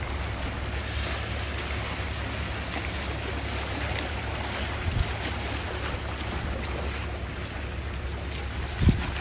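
Calm sea waves washing steadily, with wind rumbling on the microphone and two brief low thumps, one about halfway through and a louder one near the end.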